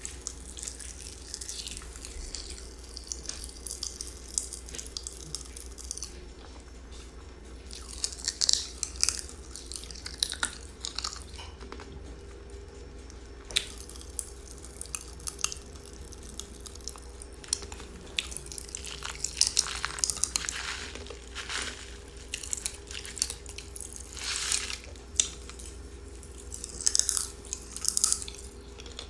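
Watermelon Pop Rocks popping candy crackling and popping in the mouth as it is chewed and crunched: irregular sharp snaps that come in denser clusters now and then, over a steady low hum.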